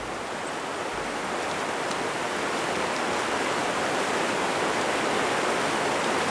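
Fast river current rushing over rocks in a riffle, a steady, even rush of water that grows louder over the first few seconds and then holds.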